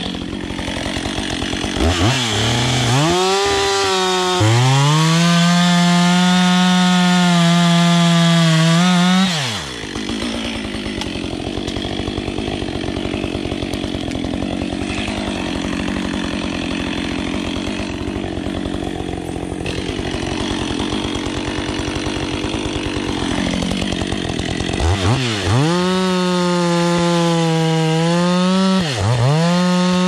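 Gas chainsaw revved to full throttle for about five seconds, then dropping back to idle for about fifteen seconds. Near the end it goes back to full throttle cutting into a felled red pine log, easing off briefly once.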